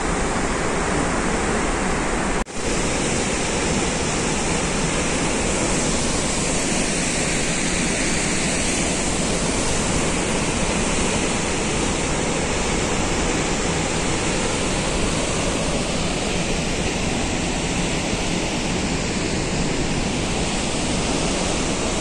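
Aharbal waterfall rushing: a steady, dense noise of falling white water, broken once by a split-second gap about two and a half seconds in.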